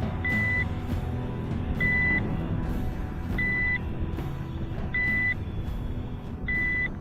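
Short, high, even-pitched warning beeps from the Xinlin X191 GPS drone set, one about every second and a half, five in all, sounding while the drone returns home to land. A steady low rumble runs underneath.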